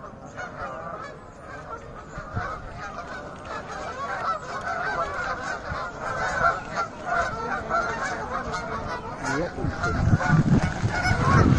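A flock of Canada geese honking continuously as it takes off from the water and flies overhead, the many overlapping calls growing louder. A low rushing noise joins near the end, where it is loudest.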